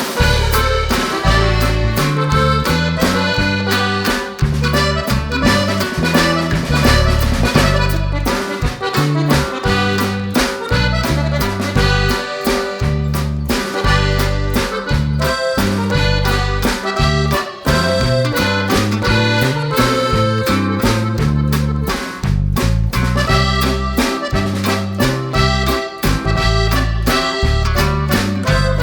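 Instrumental background music with a steady, regular bass rhythm under melody notes.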